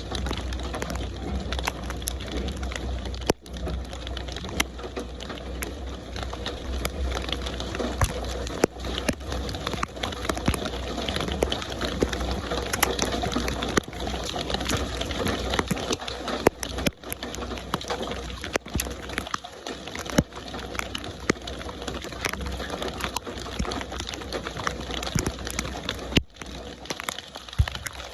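Steady rain: a dense hiss of rainfall with many sharp ticks of close drops striking a surface, broken by a few momentary gaps.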